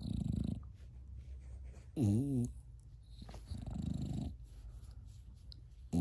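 American bully dog grumbling while having its face rubbed. There are low rumbling grumbles at the start and again around four seconds in, and a short wavering groan that rises and falls about two seconds in.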